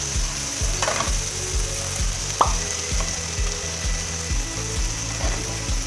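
Chicken feet sizzling in a frying pan as metal tongs stir them, with two sharp clinks of the tongs against the pan. A regular low pulse runs underneath.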